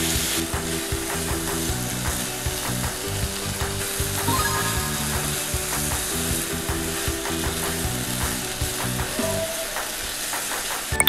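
Chicken pieces and straw mushrooms sizzling in a frying pan as they are stir-fried and stirred with a spatula, nearly cooked through.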